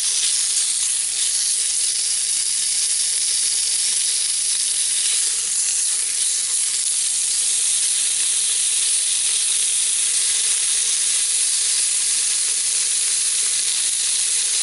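Half-inch squares of bacon sizzling steadily in a cast iron Dutch oven, sweating down at the start of cooking.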